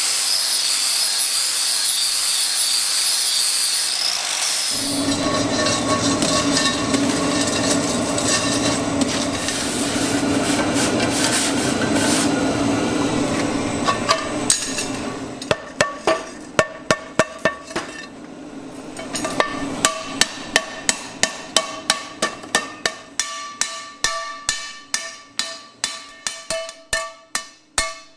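A red-hot sheet-iron skillet hissing and bubbling as it is quenched in a water tank, then a hammer striking the pan's rim on an anvil in steady ringing blows, two to three a second, with a brief pause midway.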